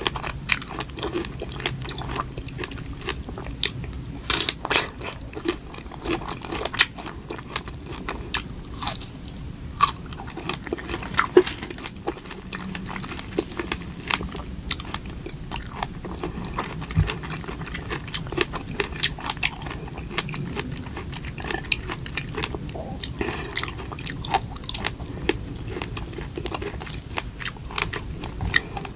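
A person eating close to the microphone, biting and chewing, with many short, irregular clicks throughout.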